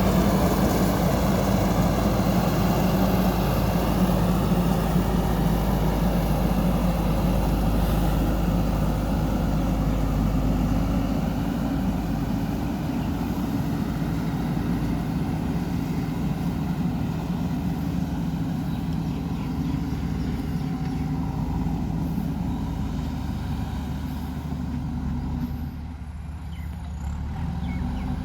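JCB 3DX backhoe loader's diesel engine running steadily under work. It is heavier for the first ten seconds or so, then eases off, dips briefly near the end and picks up again.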